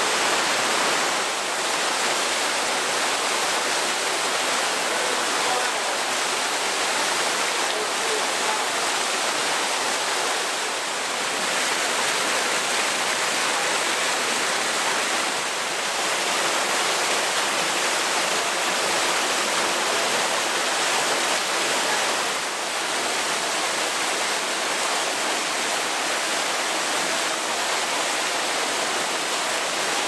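Waterfall pouring through a hole in the rock and splashing into a shallow plunge pool: a steady, even rush of falling water.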